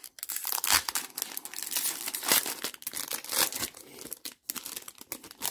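Foil Pokémon booster pack wrapper crinkling and tearing as it is opened by hand and the cards are pulled out, easing off in the last second or so.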